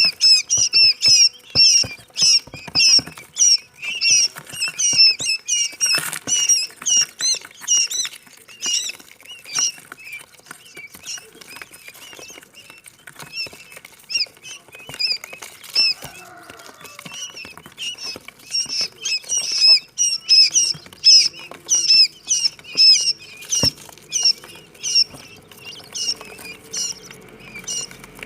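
Quail chicks peeping: many high, rapid chirps overlapping, several a second, thinning out for a while mid-way and growing dense again later.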